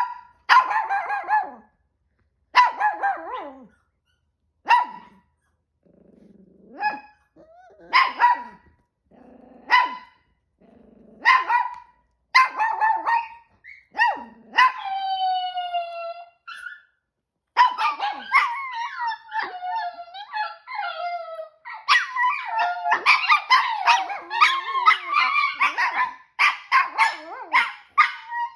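Chihuahua-poodle mix dogs barking anxiously. At first there are single sharp barks every second or two, then one long falling whine about halfway through. After that several dogs bark and howl together almost without a break.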